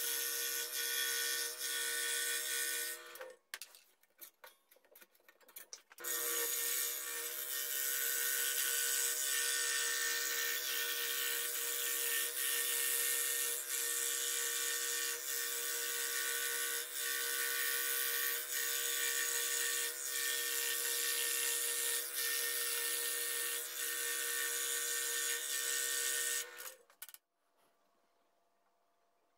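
Electric scroll saw running and cutting a wooden toy wheel, its motor hum steady under the blade's hiss. It stops about three seconds in and starts again a couple of seconds later. Near the end it cuts off, leaving near silence.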